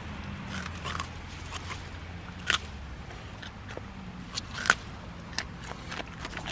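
A San'in Shiba dog biting into a daikon radish and tearing at its leaf stalks: a run of sharp, crisp crunches and snaps, the loudest about two and a half and four and a half seconds in.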